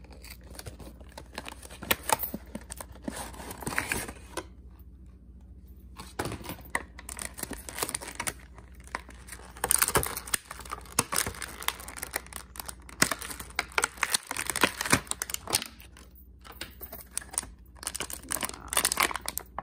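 Plastic packaging crinkling and rustling in irregular handfuls as a clear plastic bag and a clear plastic clamshell tray are pulled out of a cardboard box and unwrapped, with a couple of short pauses.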